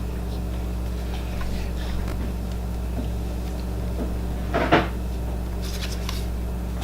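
Playing cards being handled and set down on a table over a steady low hum, with soft scattered clicks and one short louder knock about four and a half seconds in.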